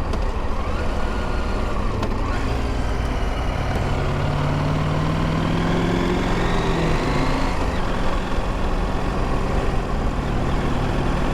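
Motorcycle engine running under way, with steady road and wind noise; its pitch rises as the bike speeds up from about four seconds in, then drops away about seven and a half seconds in.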